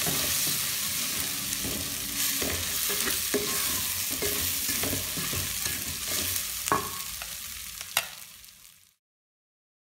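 Washed rice frying with spices in a hot metal pot, sizzling, while a wooden spoon stirs and scrapes it round the pot, with two sharp knocks near the end. The sound fades out and cuts to silence about a second before the end.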